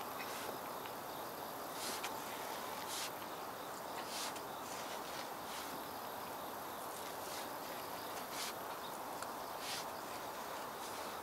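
A hand hoe scraping and dragging soil in short strokes, about one every second or so, hilling earth up onto a row of garlic chives. Underneath is a steady outdoor background with insects.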